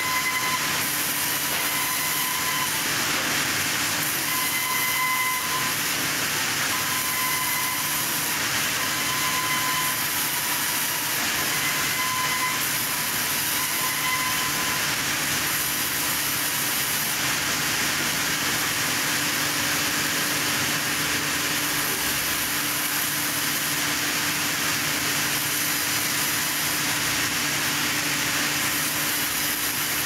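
Sawmill saws running and cutting timber: a steady, even hiss of machinery noise with a faint whine that comes and goes every couple of seconds in the first half.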